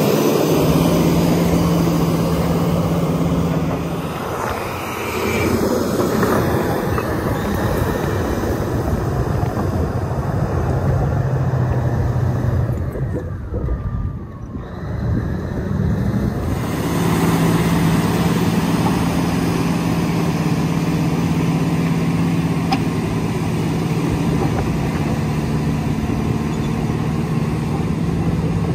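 Caterpillar D9L bulldozer's diesel engine running steadily with a deep hum as the crawler works the dirt, dipping briefly in loudness about halfway through.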